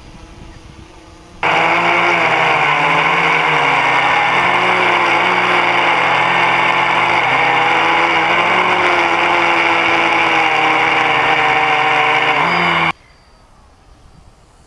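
Quadcopter's electric motors and propellers heard close up from a camera mounted on the craft: a loud, steady multi-toned whine whose pitch shifts slightly as the throttle changes. It cuts in suddenly about a second and a half in and cuts off suddenly near the end, with only a fainter background on either side.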